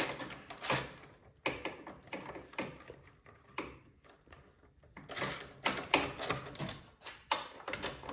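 Ratchet wrench clicking while bolts are fastened: a few scattered clicks and knocks, then quick runs of rapid ratchet clicks from about five seconds in.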